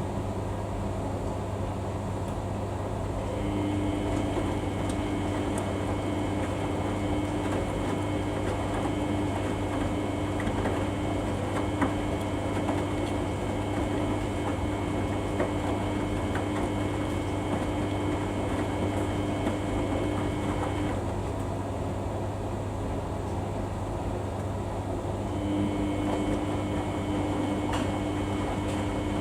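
Samsung washing machine tumbling its drum mid-way through a Daily 40 wash: a steady hum, with a motor whine that comes on about three seconds in, stops for a few seconds after about twenty, and comes back near the end. Faint clicks scattered through it.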